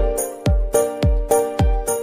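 Background music with a steady beat: a deep, falling kick drum about twice a second under sustained synth chords and crisp high percussion.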